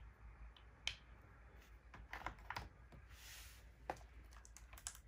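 Wooden toy blocks clicking and knocking lightly as they are fitted together and set into a plastic tray: a few scattered taps, with a brief scrape about three seconds in.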